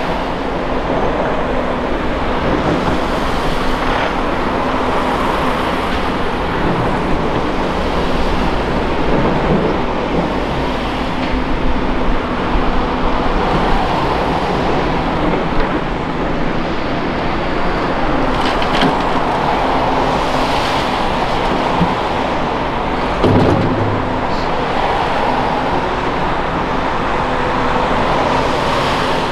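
Volvo ECR235E excavator's diesel engine running steadily through a digging and loading cycle, the pitch and load rising and falling, with a few short knocks of dirt and rock, the loudest one about three-quarters of the way through.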